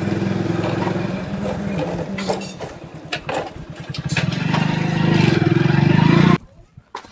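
Hero HF Deluxe motorcycle's small single-cylinder engine running as it is ridden slowly. It holds steady, eases off after about a second with a few knocks and clicks while the bike rolls, then picks up again, and the sound cuts off sharply near the end.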